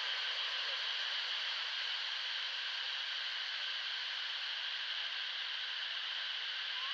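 Steady, even high-pitched hiss with no breaks or distinct calls.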